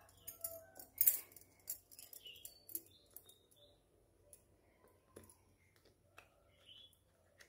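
Green plastic karanji (gujiya) mould being handled and folded shut over dough: a run of light clicks and taps, loudest about a second in, then a few scattered clicks.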